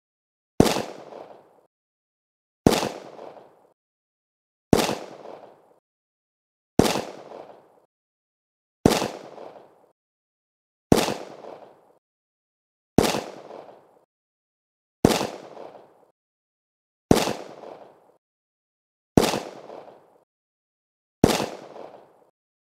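Handgun shots repeated: eleven single shots, one about every two seconds, each a sharp crack with a short fading tail and silence between.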